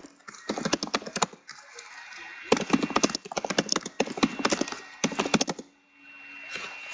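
Quick bursts of sharp clicking and crackling from trading card boxes and their packaging being handled on a table.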